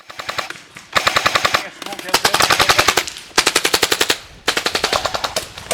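Airsoft guns firing full-auto in rapid bursts of about a second each, several in a row with short pauses between, the shots clicking at roughly a dozen or more a second.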